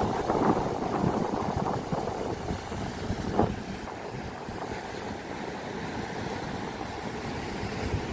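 Wind buffeting the microphone over the steady wash of breaking surf, gustier in the first couple of seconds, with one short knock about three and a half seconds in.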